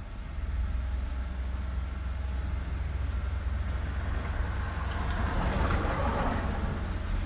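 Street traffic: a steady low rumble, with a vehicle passing close by that swells to a peak about five to six seconds in and then fades.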